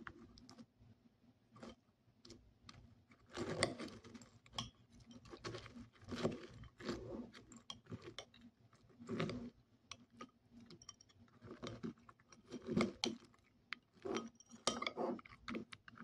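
Crunchy chocolate and red berry granola clusters crunching in irregular bursts a second or two apart, with small sharp clicks between them.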